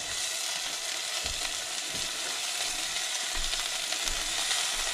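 Food frying in a pot with onions and home-made tomato paste, a steady sizzle with no letup.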